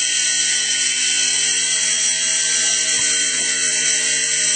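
Small electric RC helicopter's motor and rotors whirring steadily, a constant whine of motor and gears under an even rushing hiss.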